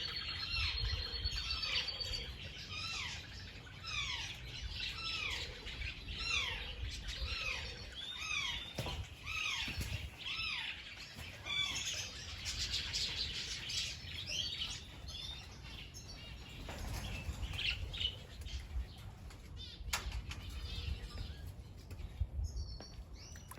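Many birds chirping, short hooked calls repeating and overlapping throughout, with a brief high trill at the start and a low rumble underneath.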